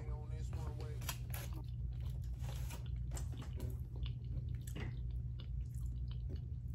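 Close-miked chewing of a forkful of potatoes and sausage: many small, irregular mouth clicks over a steady low hum.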